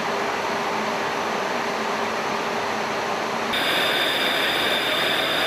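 Steady cabin noise aboard an E-3 AWACS jet in flight: engine and airflow noise with a faint low hum. About three and a half seconds in it changes abruptly to a brighter hiss with a high steady whine.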